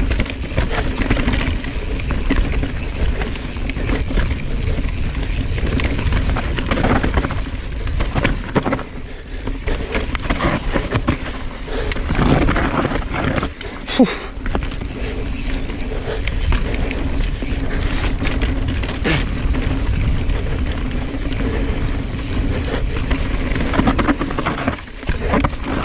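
Mountain bike descending a rough, rocky trail: tyres rumbling and skittering over rocks and roots, with the chain and frame rattling over the bumps and wind on the microphone. A sharp knock about halfway through stands out as the loudest hit.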